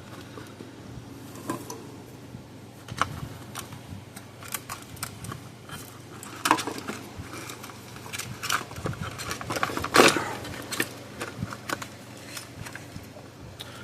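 Hands working on the electric fence charger's parts and tools: scattered clicks, knocks and light rattles, the sharpest about six and a half and ten seconds in, over a faint steady low hum.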